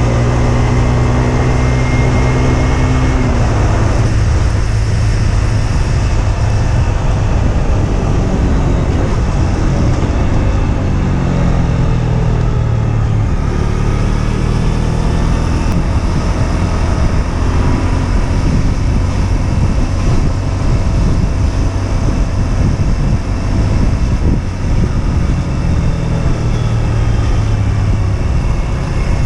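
Husqvarna Svartpilen 125's single-cylinder four-stroke engine pulling the bike along the road, its note steady, then dropping about three seconds in and rising and falling again with the throttle, over steady wind and road noise.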